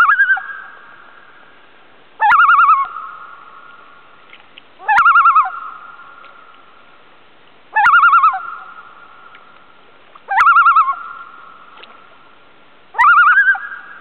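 Common loon calling from the water: a short call that swoops up and then quavers rapidly, repeated six times about every two and a half seconds, each trailing off in a long fading tail.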